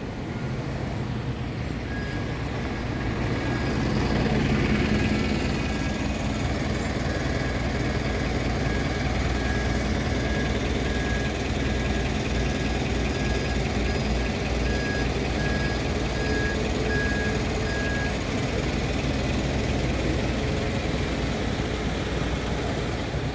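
Double-decker bus engine running close by as the bus moves off its stand, with its high reversing alarm beeping steadily about twice a second. The beeping stops about three-quarters of the way through while the engine runs on.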